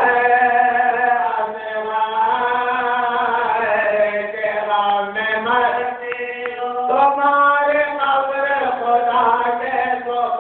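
A voice chanting a slow melodic recitation, holding long drawn-out notes that slide gently up and down, with a brief dip in loudness about six seconds in before the chant swells again.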